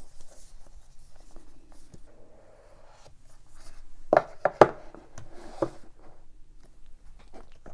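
Cardboard of an iPhone SE retail box being handled: soft rubbing and sliding of card, with a few sharp knocks about four to five and a half seconds in as the box pieces are set down on a wooden table.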